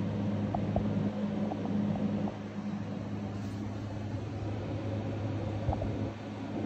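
Steady low mechanical hum at a constant pitch over a noisy background, with a few faint ticks.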